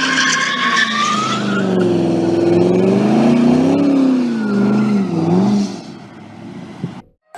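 Car engine revving up and down, with tyres squealing during the first second or so; the sound fades out near the end.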